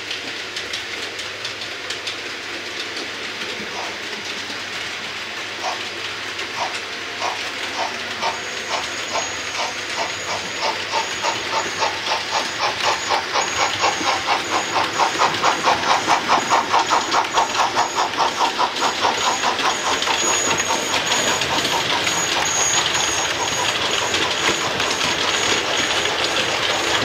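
Model railway train (a steam locomotive hauling coaches) running on the layout's track. Its wheels click rhythmically, the clicks growing faster and louder as it comes near and loudest around the middle. A thin high motor whine joins about eight seconds in.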